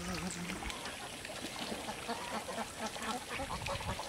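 A flock of birds calling: many short, overlapping calls in quick succession. A long call with a falling pitch ends about half a second in.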